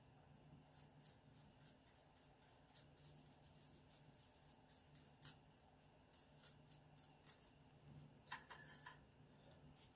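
Faint, light scratching of a watercolor brush stroking across Arches 140 lb watercolor paper. Near the end comes a short cluster of sharper clicks as the brush works in the paint palette.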